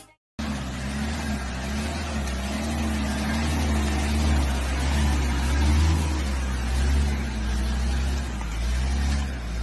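Mitsubishi L300 pickup's diesel engine running under load as the laden four-wheel-drive truck churns through deep mud: a steady low drone whose pitch wavers slightly.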